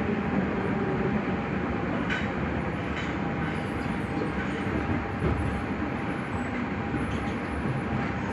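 Nagoya Municipal Subway Higashiyama Line 5050-series train noise: a steady mechanical rumble, with a couple of light clicks about two and three seconds in.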